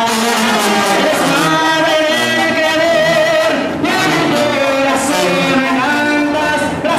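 Crowd of people singing together with instrumental accompaniment, many voices at once, with a brief dip a little before four seconds in.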